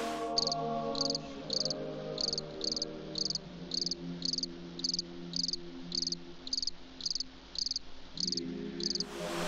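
Crickets chirping in a steady rhythm, about two short pulsed chirps a second, over soft sustained low tones that change pitch twice.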